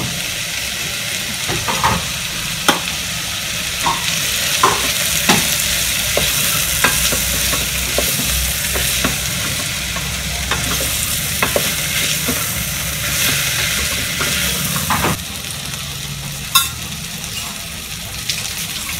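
Chopped onions and vegetables sizzling as they fry in oil in an electric cooker's metal pot, stirred with a wooden spatula that knocks against the pot every second or so. About three-quarters of the way through the stirring and knocks stop and the sizzle carries on a little softer.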